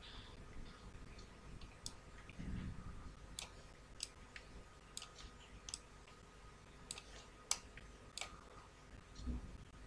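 Computer mouse clicking: about eight faint, separate sharp clicks at irregular intervals while the view is dragged and zoomed. Two low, dull bumps come about two and a half seconds in and near the end.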